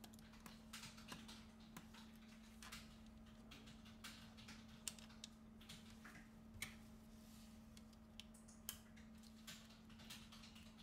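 Faint, irregular clicks and taps of tweezers and small tablet parts being handled and seated during reassembly, a few sharper than the rest, over a faint steady hum.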